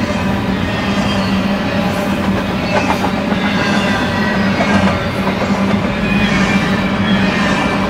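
Double-stack intermodal freight train's loaded well cars rolling past: a steady loud rumble of steel wheels on the rails, with faint high squeals that slide in pitch.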